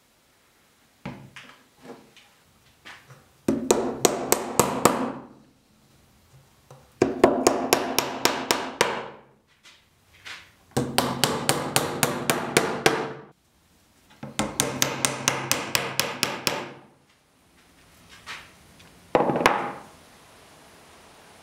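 Hammer striking wood in four runs of quick blows, about five a second, with a few single knocks before the first run and two near the end.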